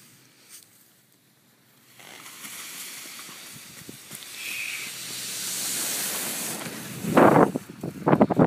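A rushing hiss of wind and snow that builds from about two seconds in, during a car-towed paraglider launch on skis, with a loud gusty blast near the end.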